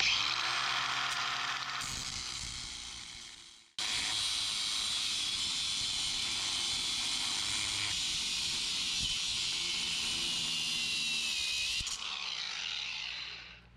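Angle grinder with a cutoff wheel cutting through a metal pedal, a steady hissing whine. It winds down twice, about three seconds in and again near the end.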